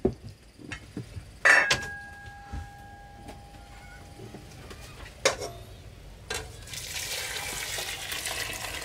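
Metal cooking pots knocking, the first knock leaving a ringing tone that fades over a few seconds. From about seven seconds in, meat broth is poured from one pot into a pot of diced potatoes, a steady splashing pour.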